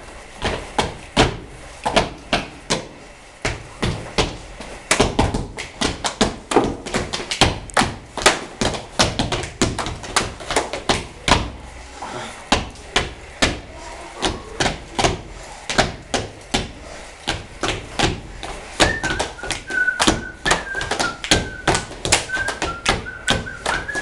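Body percussion: rapid taps and thuds struck on the body in a quick rhythmic run, several strokes a second. Near the end a high wavering tone joins in over the strokes.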